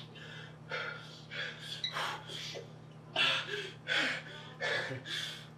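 A man breathing hard and fast in angry, gasping breaths, about two a second, some with a short voiced catch.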